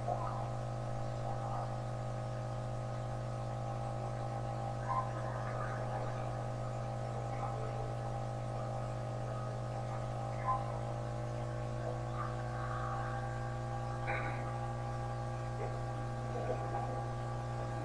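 A steady droning hum of several held tones over a low mains-like hum, with a few faint knocks.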